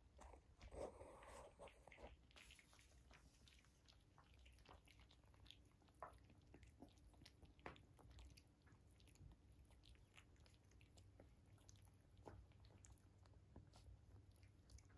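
Faint wet lapping and chewing of Maltese–Shih Tzu mix puppies eating soft mush from shallow bowls: scattered small clicks and smacks, with one brief louder sound about a second in.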